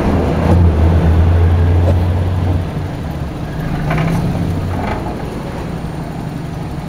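Car's four-cylinder engine idling with the hood open, a deep steady hum. The hum is louder for the first two and a half seconds, then eases to a softer idle, with a couple of faint clicks about four and five seconds in.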